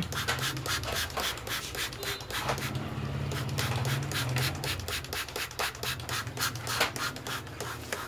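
Hands and a plastic oil bottle rubbing and scraping against the metal mechanism of an industrial buttonhole machine while it is oiled, with scattered small clicks. A low steady hum runs underneath and grows stronger about halfway through.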